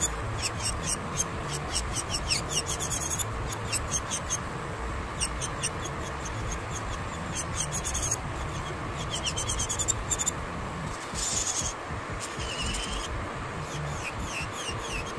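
Electric nail drill (e-file) running, its bit grinding gel off a nail with a steady whine and frequent short, high-pitched squeaks as it rubs and catches on the nail surface.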